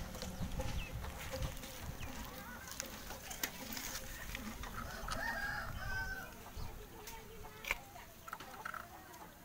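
Chickens clucking, with a few sharp clicks and taps scattered through.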